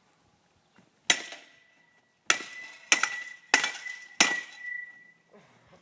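A baseball bat strikes straight down on a crumpled metal object on the ground five times. There is one hit about a second in, then four quick hits about two-thirds of a second apart. Each hit clangs, and a high metallic ring hangs on after the blows before fading.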